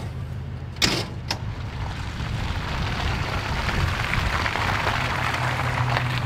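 Two sharp knocks about a second in, a hatch being shut on the truck's canopy, then a Toyota Tundra pickup towing a camper trailer drives past on a dirt road, its tyre and engine noise building as it comes by.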